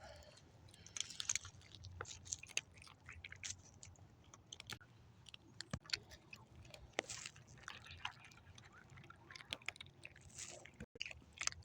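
Cats chewing and eating food: faint, irregular smacking and crunching clicks.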